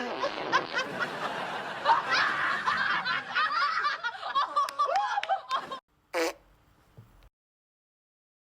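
Audience laughter, many people laughing at once, that cuts off abruptly about six seconds in, followed by one brief sound.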